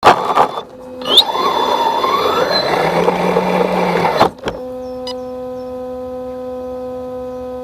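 Edited outro sound: a loud rushing whoosh with a rising sweep for about four seconds that cuts off sharply, then a steady electronic drone of several held tones.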